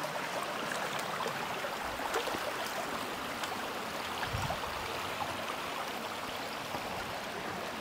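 Shallow creek water running and babbling over rocks, a steady rushing sound.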